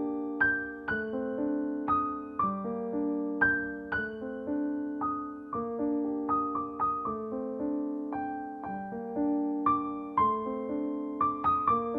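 Soft background music on piano, a gentle melody of single notes and chords played at a slow, even pace.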